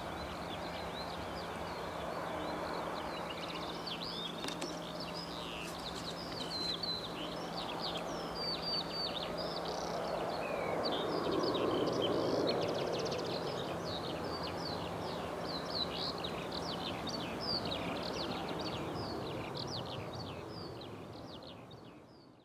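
Distant jet engine noise from an Airbus A320's CFM56 turbofans at take-off power as the airliner lifts off and climbs away: a broad rumble that swells to its loudest about halfway through, then eases and fades out at the very end. Many small birds chirp throughout.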